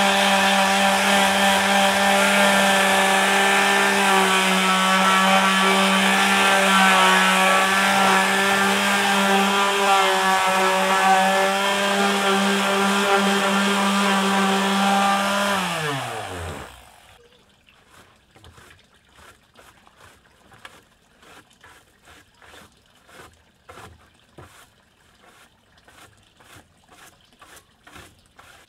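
Small electric palm sander running steadily on bare wooden deck boards, then switched off a little past halfway, its motor winding down in a falling whine. After it, faint quick repeated strokes of a hand brush sweeping sanding dust off the boards.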